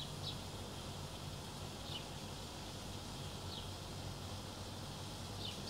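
Faint steady background noise with a low hum, and a short, faint high chirp about every second and a half.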